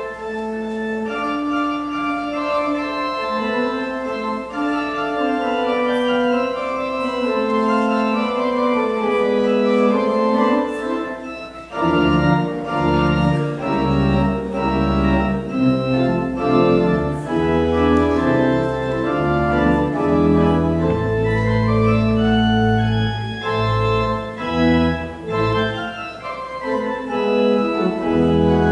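Church organ playing a slow piece in held chords. About twelve seconds in, low pedal bass notes come in and the sound becomes fuller.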